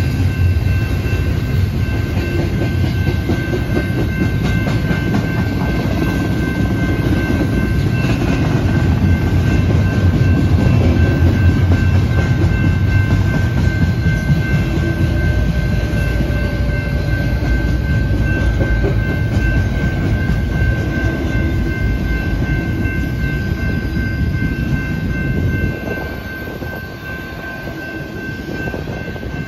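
Double-stack intermodal well cars rolling past: a steady rumble and clatter of wheels on rail, getting quieter about 26 seconds in. A grade-crossing bell rings steadily over it.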